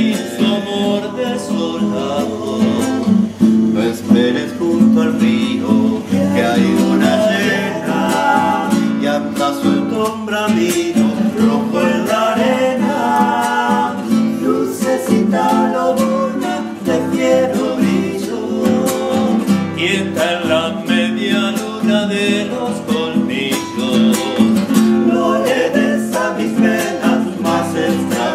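Nylon-string classical guitar strummed, accompanying male voices singing.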